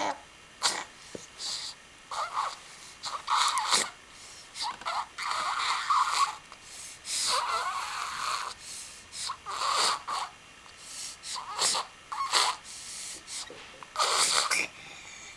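A baby sneezing and snuffling over and over, about a dozen short breathy bursts, roughly one a second.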